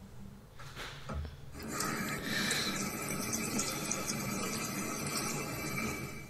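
Bathroom sink tap running, water splashing over a dachshund's paws held under the stream. It starts about one and a half seconds in, after a couple of faint knocks, and then runs steadily.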